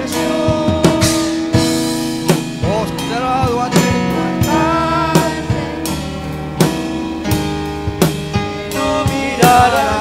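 Live church worship band playing a gospel chorus between sung lines: electric keyboard and electric bass over a drum kit keeping a steady beat, with a voice singing briefly in the middle.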